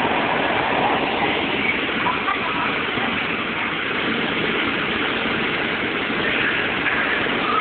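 A steady rushing noise that holds an even level, with children's voices faintly mixed in.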